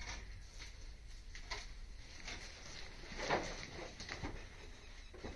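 Rabbits moving and feeding on grass in their pen: scattered light rustles and taps, the loudest about three seconds in.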